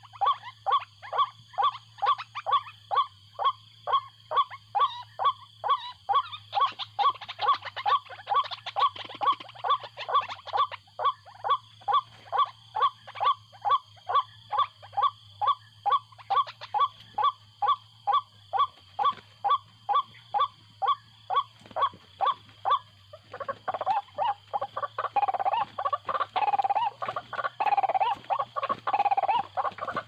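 White-breasted waterhen calls: a steady, evenly spaced series of short, pitched calls, about two a second. From about two-thirds of the way through they turn into louder, denser, almost unbroken calling.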